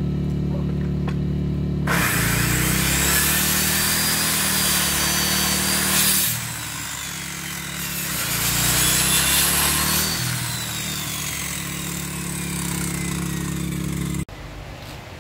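A corded circular saw cutting through a wooden plank in two passes, about two seconds in and again around eight seconds, its motor whine dipping as the blade bites. Under it a RYOBI inverter generator's engine hums, the saw drawing its power from it. The saw stops about fourteen seconds in, leaving the generator's quieter hum.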